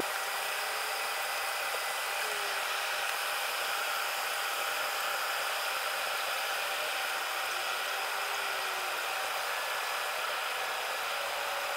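Airliner cabin noise in flight, played back at ten times speed, so it comes out as a steady, even hiss without the usual low rumble.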